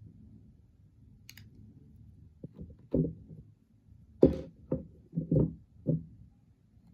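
3D-printed plastic model parts knocking and clicking as they are handled and fitted together: a brief faint scrape about a second in, then a run of about eight short knocks, the loudest just past the middle.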